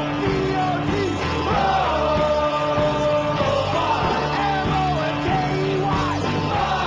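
Rock music with a steady drum beat and sustained instrumental notes.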